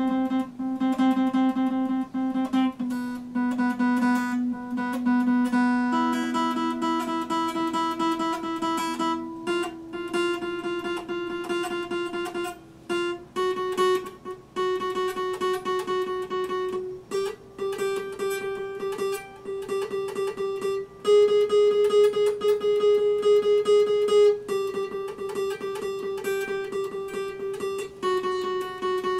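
Epiphone acoustic guitar being played, repeatedly picked and strummed chords that change every couple of seconds.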